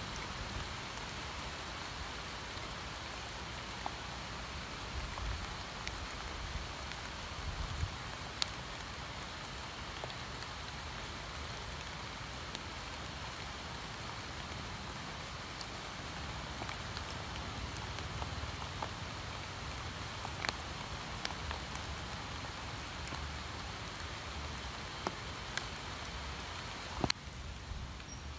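Steady rain falling on open water and the leaves of trees: an even hiss with scattered sharper drip ticks. Near the end a louder tick, after which the hiss is a little softer.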